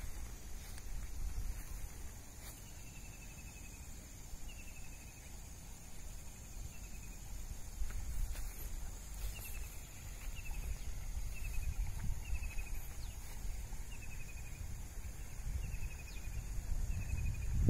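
Rural outdoor ambience: a steady high-pitched insect drone with a short falling chirp repeated about once a second, over a low wind rumble.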